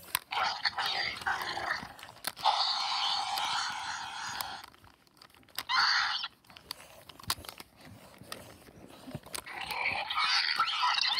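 A person making raspy, hissing growls in imitation of a raptor, in four bursts: two long ones in the first half, a short one about six seconds in, and another near the end.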